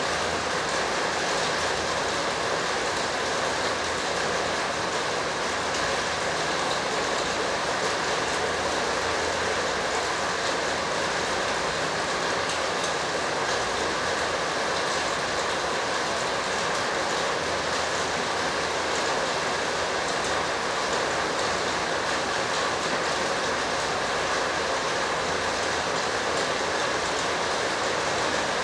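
Steady, even rushing noise that never changes in level, with no distinct events in it.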